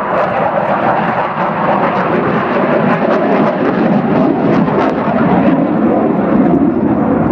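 Military display aircraft flying past, its engine noise loud and steady, the sound deepening in the second half of the pass.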